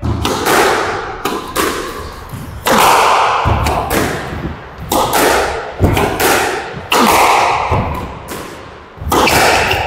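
A squash rally: the ball cracking off rackets and the court walls in a string of sharp hits, about one every half second to second, each echoing in the court.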